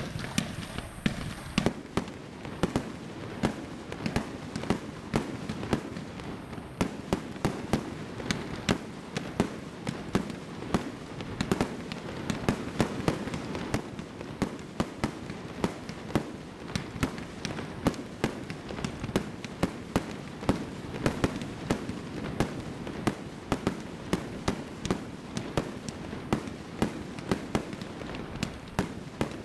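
Single-ignition firework barrage (Epic Fireworks 'Tinsel') firing shot after shot in steady rapid succession, about two to three sharp reports a second, over a continuous hiss of burning sparks.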